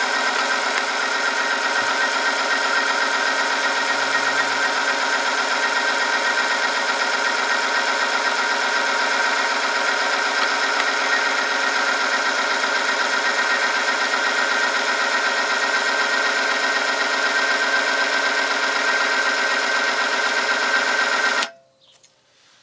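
Electric motor of a bench-top oil-film friction tester running steadily, the loaded test sample rubbing on the spinning ring in oil, giving a steady whine of several high tones. It stops suddenly about 21 seconds in as the machine is switched off.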